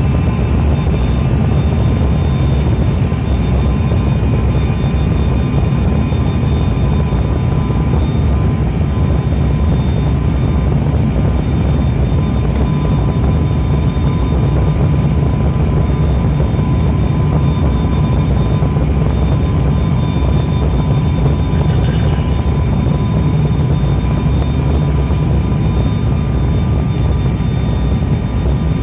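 Cabin noise inside an ATR 72-500 turboprop airliner on descent: a steady low rumble from its Pratt & Whitney PW127 turboprop engines and propellers, with a few thin steady tones above it.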